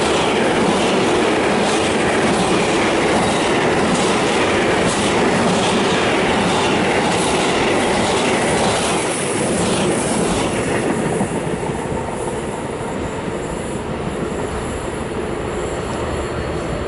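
Intermodal freight train of road trailers on flat wagons passing close by, its wheels clacking over the rails. The last wagon goes by about ten seconds in, and the rumble then fades.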